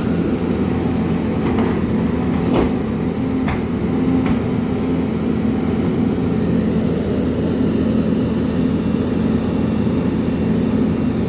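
Steady jet-turbine noise on an airport ramp: a low drone under a constant high whine, from an aircraft's engine or auxiliary power unit. A few light knocks between about two and four and a half seconds in, the sharpest about two and a half seconds in.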